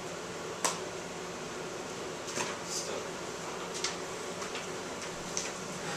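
Steady room hum with papers rustling and a few small clicks and knocks at a desk as papers are gathered up; a sharp click about two-thirds of a second in is the loudest.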